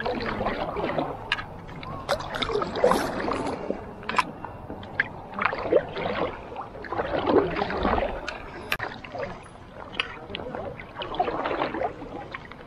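Stand-up paddle board paddle strokes swishing and splashing through lake water, a stroke every few seconds, with scattered short clicks and knocks.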